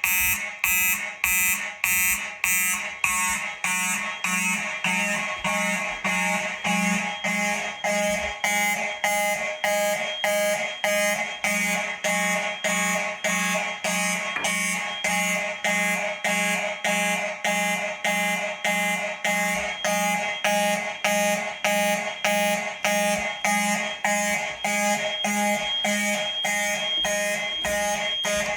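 Fire alarm notification horns sounding in a pulsing march-time code, about two blasts a second, with a steady high tone underneath. The system is in alarm after test smoke was sprayed into a smoke detector.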